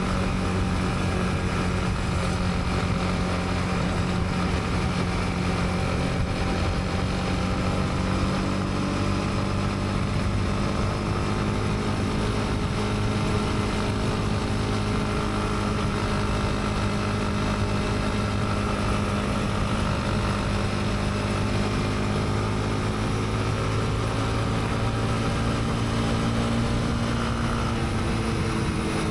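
Honda CB300R's single-cylinder engine running at steady cruising revs, the pitch holding almost level and easing off slightly near the end.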